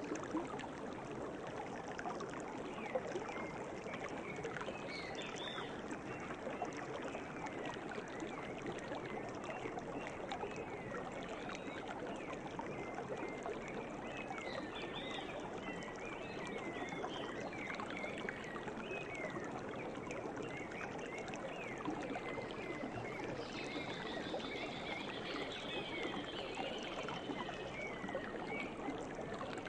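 Steady rush of a flowing stream, with birds chirping over it throughout and a rapid trill for a few seconds about three-quarters of the way through.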